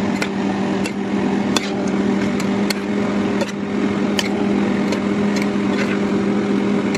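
Kitchen cooking sounds: a utensil clinking against a pan irregularly, about twice a second, while pasta is worked in it, over a steady motor hum with one even tone.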